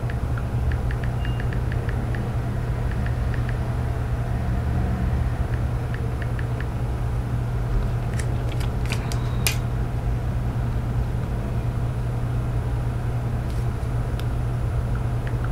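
A steady low hum, with a short run of clicks from tapping the iPhone's on-screen keyboard about eight to nine and a half seconds in.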